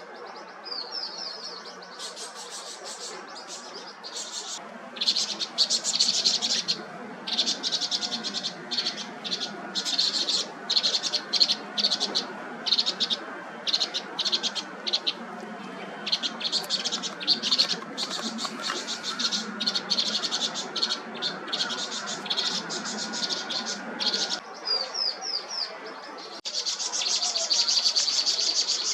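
Vinous-throated parrotbills calling, with rapid runs of short, high chirps that come in bursts and pauses, and a few quick falling notes near the start and again near the end.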